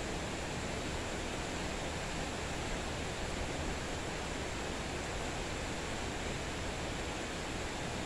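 Steady rain falling: an even hiss with no single drops standing out.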